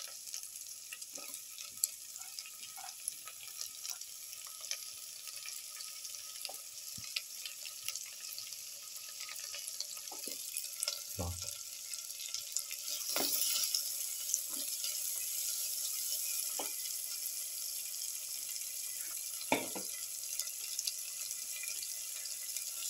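Sliced onions and shallots sizzling in melted butter, with scattered clicks and a few knocks from a spatula stirring them in the pan. The sizzle grows louder about halfway through.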